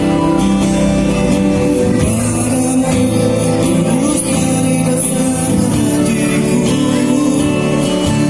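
Music with a singing voice over instrumental backing, played loud and steady through a sound system.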